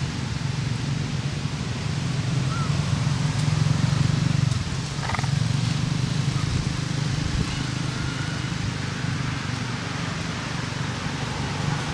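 Steady low engine hum, like a motor vehicle running nearby, with a few faint short chirps over it.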